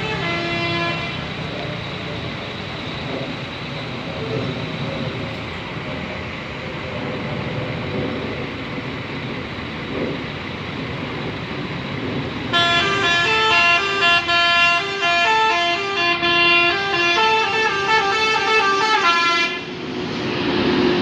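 Bus telolet horn playing a tune of quick, changing notes, several pitches at once: the tail of one run in the first second, then steady vehicle noise for about eleven seconds, then a loud run of about seven seconds that cuts off suddenly. Another held horn tone starts near the end.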